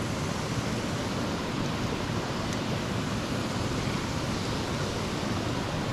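Steady rushing outdoor background noise, an even hiss with no distinct events.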